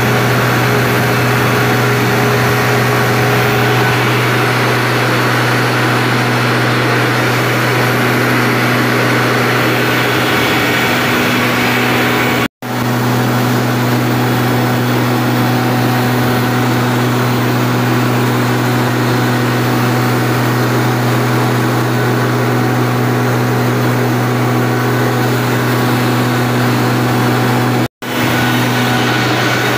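Greaves Cotton 500 kVA twelve-cylinder diesel generator set running loud and steady at constant speed, a deep even hum with steady tones over it.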